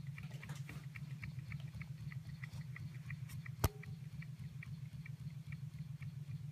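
Model Stirling hot-air engines running: a steady pulsing hum with rapid, even light ticking from the mechanism, and one sharp click about three and a half seconds in.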